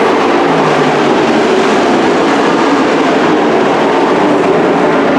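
Pack of dirt-track racing trucks at speed, their engines running hard in a loud, steady drone.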